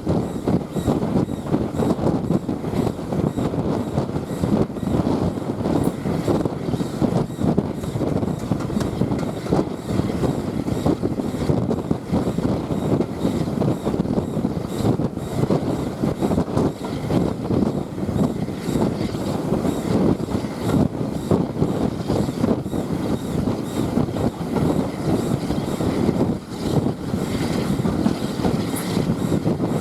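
Heritage steam-hauled train in motion, heard from aboard a carriage: a steady rumble of wheels on the rails with continual rattling and clatter.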